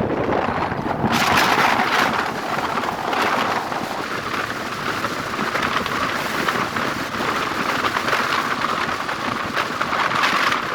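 Steady rushing wind and road noise of a vehicle moving along a highway, turning brighter and hissier about a second in.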